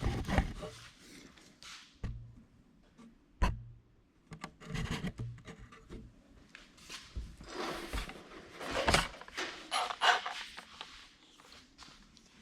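Hand work on turbocharger parts: irregular knocks and clinks, with stretches of scraping and rubbing, the loudest a run of scrapes about two-thirds of the way through.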